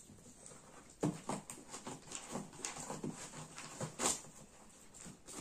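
Paper packing rustling and crinkling inside a cardboard box as it is pulled out by hand, in irregular bursts that start about a second in, with the sharpest crackle about four seconds in.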